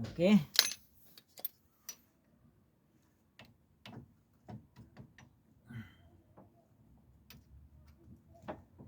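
Irregular light metallic clicks and taps, a dozen or so spread unevenly, as the new rear brake pads and caliper parts are handled and fitted on the bracket.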